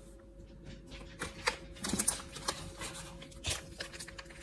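Small handling sounds: scattered light taps and crinkles as a small paper candy-powder packet is picked up and worked open, over a faint steady hum.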